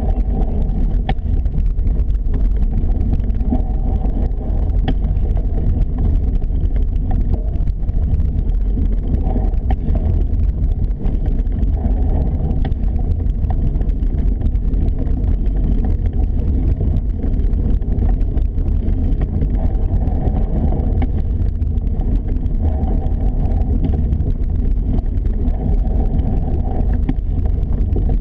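Wind buffeting the microphone: a steady, heavy rumble with no break.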